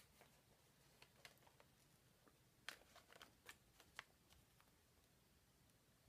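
Near silence: room tone with a few faint, crisp ticks and rustles of paper banknotes being handled, the clearest about three to four seconds in.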